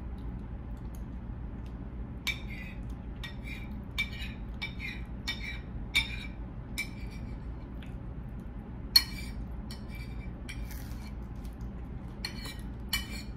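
Light, irregular clinks and taps of food and fingers against a plate at a breakfast table, about a dozen in all, the sharpest about nine seconds in. A low steady room hum runs underneath.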